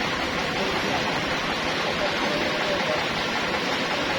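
Sawmill machinery running with a steady, even noise, with faint voices underneath.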